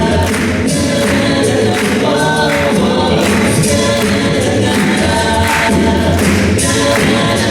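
An a cappella vocal group singing in close harmony, several voices holding chords over a steady sung bass line.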